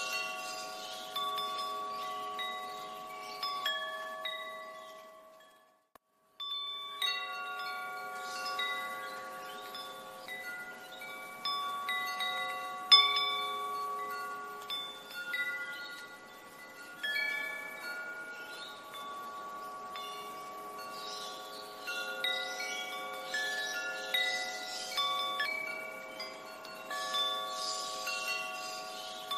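Wind chimes ringing, many overlapping metallic tones struck at random and left to ring on. The ringing fades out about five seconds in, falls silent for a moment, then starts again; one strike about thirteen seconds in is louder than the rest.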